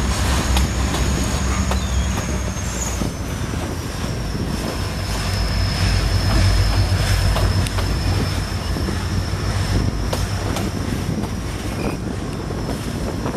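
Freight train of hopper wagons rolling past, its wheels squealing in one thin high tone that drifts slightly lower in the first few seconds and then holds. Underneath are a steady rumble and scattered clacks of the wheels.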